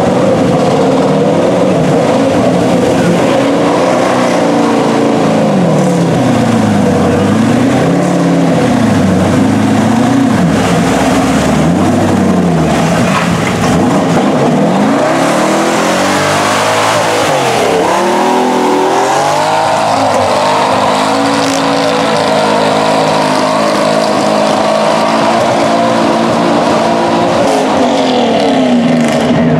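Mud truck's engine revving hard in repeated waves, rising and falling about every two seconds, as its giant tractor-tread tires churn through the mud pit. In the second half the revs swoop down and back up, then are held high and fairly steady.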